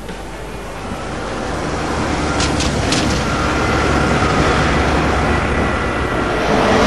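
A car driving up on a wet road, its engine and tyre hiss growing steadily louder as it approaches.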